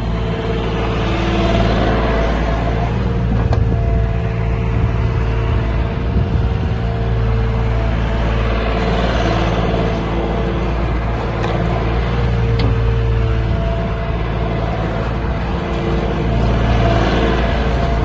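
Diesel engine of a Wacker Neuson SW16 skid steer running under load as the machine drives across the yard, its engine note swelling and easing a few times as it moves and turns.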